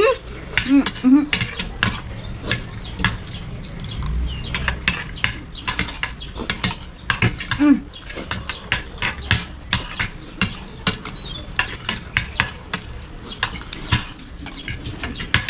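Forks and spoons clinking and scraping against plates in many quick, irregular taps as two people eat. A couple of brief voice sounds come near the start and about halfway through.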